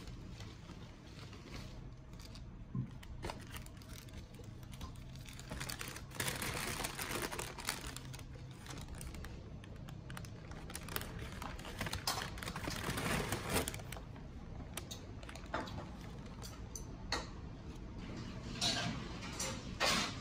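Paper fast-food packaging handled close by: a paper takeaway bag and wrappers rustling and crinkling, with scattered small clicks and taps. The rustling comes in several longer spells between quieter handling.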